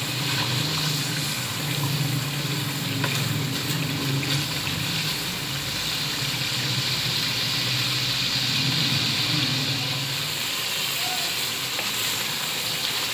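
Mutton liver gravy sizzling and bubbling in an aluminium karahi on a gas stove, stirred with a wooden spatula that now and then scrapes and taps the pan. A low hum runs underneath and stops about ten seconds in.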